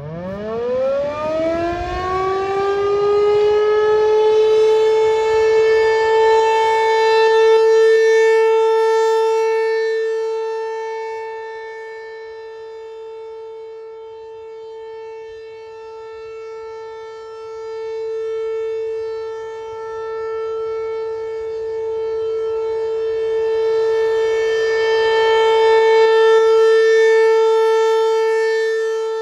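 American Signal ASC T-128 rotating outdoor warning siren winding up within about two seconds to a steady alert tone. Its loudness swells and fades as the siren head rotates, at its loudest at the start, about two-thirds of the way through and again near the end.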